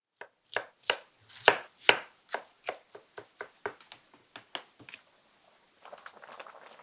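A run of sharp knife strokes on a cutting board, about two or three a second, loudest around one and a half to two seconds in and thinning out later. About six seconds in a soft, dense crackle takes over: the spicy fish braise simmering in its pot.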